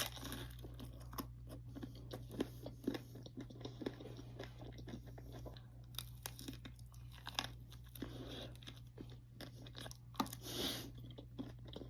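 Close-up chewing and crunching of a Reese's peanut butter ice cream cone, with irregular crisp crunches every fraction of a second to a second.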